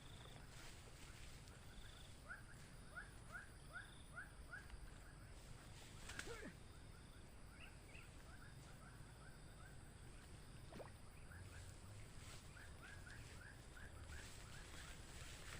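Quiet outdoor ambience with a low steady background and runs of short, repeated chirps from a calling animal, several a second.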